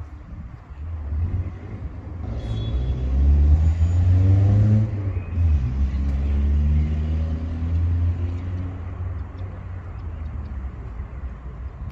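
A car passing by, its engine growing louder to a peak about three to five seconds in, then fading away.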